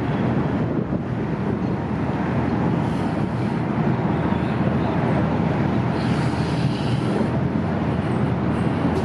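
Ferry's engines running steadily at berth with a low hum, under wind buffeting the microphone.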